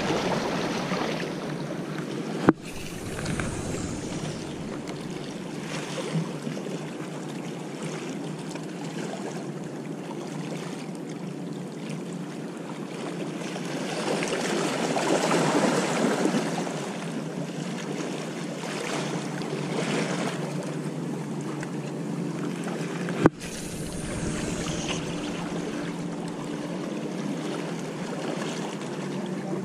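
Sea water washing against the rocks of a harbour breakwater, with wind on the microphone. The wash swells for a couple of seconds in the middle, a faint steady low hum runs under it, and there are two sharp clicks, one a few seconds in and one near the end.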